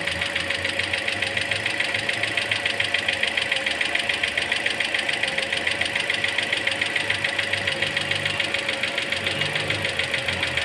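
Toyota Corolla Altis engine idling with a rapid, even knocking. The knocking has returned while the cooling system is low on coolant and full of air bubbles after an AC compressor job, which the mechanic takes as tied to that cooling problem.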